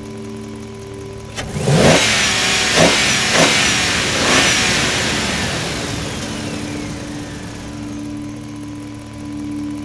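Excavator engine revving hard in several surges for a few seconds, then easing back to a steady hum.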